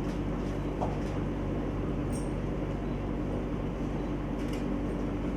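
Steady low hum of room background noise that does not change.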